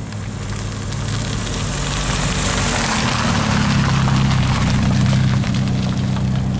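A car engine running close by, with a low steady note and road noise, growing louder over the first four seconds or so and then holding.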